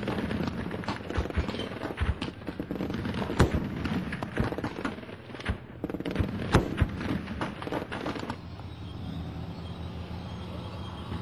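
Scattered, irregular gunshots, some overlapping, for about eight seconds. Then the shots stop and a steady low hum is left.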